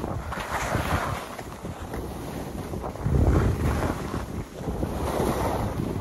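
Wind buffeting the microphone during a downhill ski run, with skis hissing and scraping over packed snow in surges as the skier turns, loudest about three seconds in.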